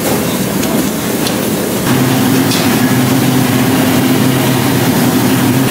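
Fast-food restaurant room noise, with a steady low machine hum coming in about two seconds in and holding.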